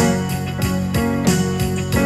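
Instrumental passage of a gospel praise song: sustained chords over a steady beat of about three strokes a second.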